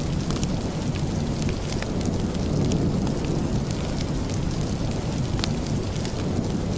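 Steady rain: an even rumbling hiss with scattered sharp ticks throughout.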